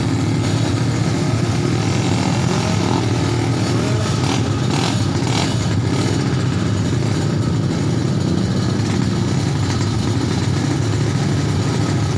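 Drag-racing motorcycle engines running steadily at the start line, a loud, even engine noise with no launch.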